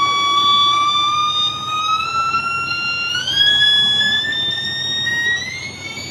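Speaker-cleaning tone, meant to drive water and dust out of a device's speaker: one loud pitched tone with overtones that rises slowly in pitch, stepping up about three seconds in and again near the end.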